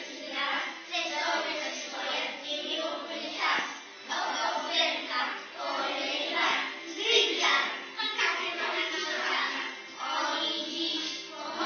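A group of young children singing together in unison, a song in phrases with a few arm-gesture movements.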